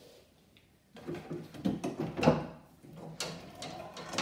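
Lid of a wooden trunk being handled and lifted open, with knocks and scraping. The loudest knock comes a little past halfway through.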